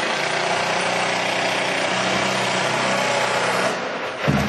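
Electric drill running steadily under load into the insulated roof panel, stopping about four seconds in.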